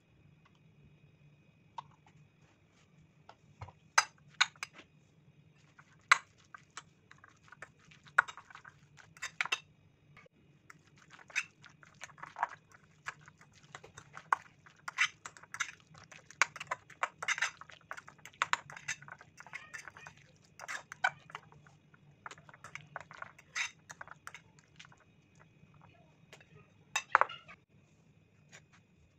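Metal spoon stirring and scraping a thick mayonnaise-and-grated-vegetable mixture in a ceramic bowl, with irregular clinks and scrapes against the bowl. A sharper clink comes near the end.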